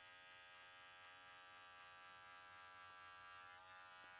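Electric hair clipper running with a faint, steady buzz while cutting close to the scalp, blending out a guideline in a skin fade; its tone shifts briefly near the end.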